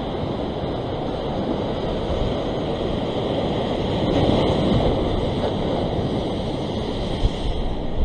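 Ocean surf surging and breaking over a rock ledge, a steady rushing wash that swells about four seconds in.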